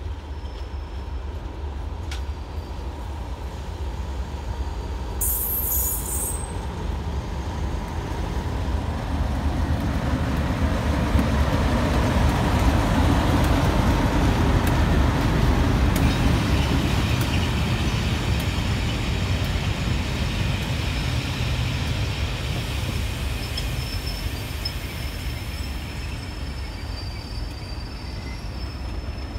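Class 37 diesel locomotive with its English Electric V12 engine, heading a track-inspection train and growing louder as it comes up and passes close by, loudest about halfway through. The coaches then roll past with steady wheel-and-rail noise that slowly eases, and a faint high whine rises near the end.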